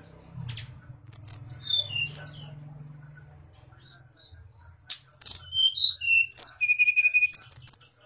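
Caged sulingan gunung songbird singing two phrases of clear whistled notes that glide down from high pitches. The second phrase is longer and ends in a held note and then a quick high trill.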